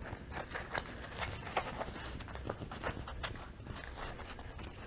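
Canvas being folded and creased by hand over the corner of a wooden stretcher frame: faint rustling with scattered small clicks and scrapes.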